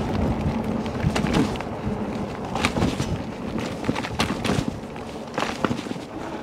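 Fat-tire electric bike being ridden, heard from a camera mounted on the bike: low rumble of tyres and wind with a dozen or so scattered knocks and rattles from the frame and suspension over the bumps.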